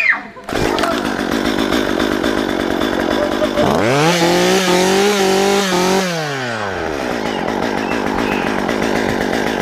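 Two-stroke chainsaw engine running, cutting in sharply about half a second in. It is revved up hard for about two seconds near the middle, then drops back to a steady idle.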